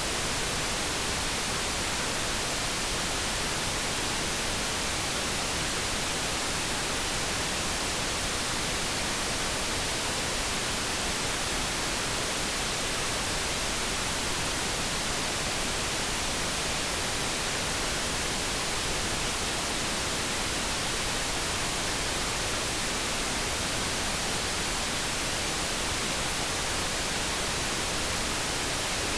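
Steady synthetic background noise, an even hiss that never changes, with no kettle tone or other pitched sound in it.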